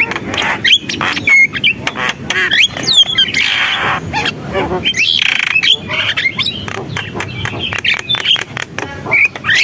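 Javan myna (jalak kebo) singing a fast, varied chattering song of short chirps and whistles, broken by two longer harsh, rasping calls about three and a half and five seconds in.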